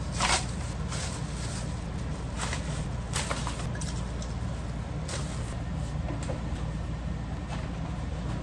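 Short rustles and handling noises from tidying up, with rubbish going into a black plastic trash bag and bedding being shaken out, over a steady low hum. The clearest rustles come a few times in the first five seconds.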